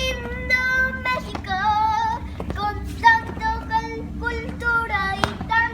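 A child singing a melody in a string of held, gliding notes.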